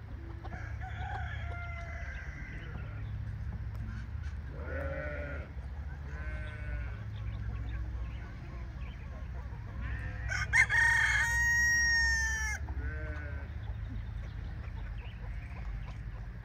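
Chickens clucking and calling in short bursts, then a rooster crowing once, loud and long, about two-thirds of the way through.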